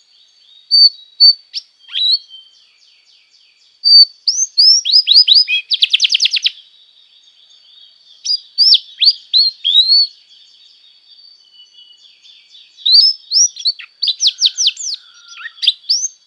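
Domestic canary singing: bursts of quick falling whistled notes, with a fast rattling trill about six seconds in, over a faint steady high tone.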